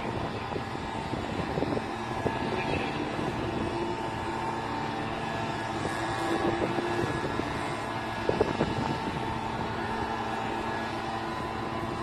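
Car engines idling steadily while cars wait at a drag strip starting line, with a short knock about eight seconds in.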